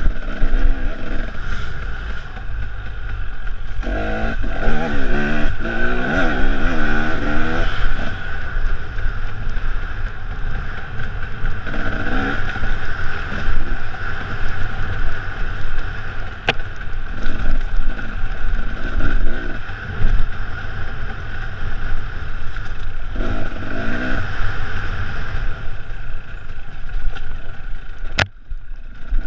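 Enduro dirt bike's engine heard from onboard the motorcycle, revving up and down repeatedly as it accelerates and backs off over a rough trail, with wind and rattling over the engine.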